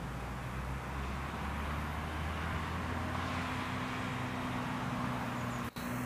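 Steady background of distant road traffic: a low engine hum under a broad hiss, with a brief dropout near the end.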